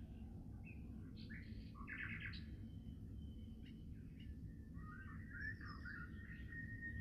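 Small birds chirping and twittering in short bursts, joined about five seconds in by a steady high whistling tone that holds on, over a low background rumble.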